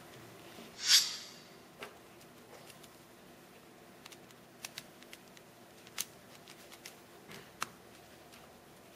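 A sound effect played from a phone's sound-effects app: one short hissing swish about a second in, followed by a scattering of faint sharp clicks and ticks.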